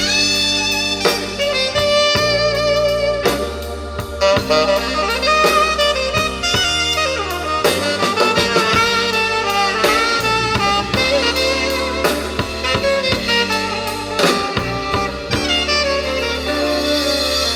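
Instrumental jazz-blues passage with a saxophone playing the lead melody over bass and a drum kit.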